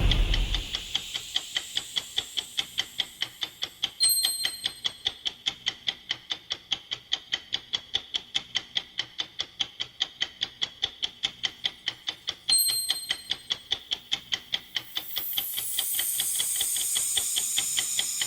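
Ticking-clock sound effect of a countdown timer: fast, even ticks, several a second. A brief bright ring cuts in twice, about 4 s in and near 12.5 s. A rising whoosh of noise swells in from about 15 s.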